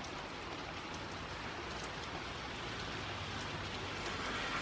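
Steady rain falling, with a few separate drops ticking close by.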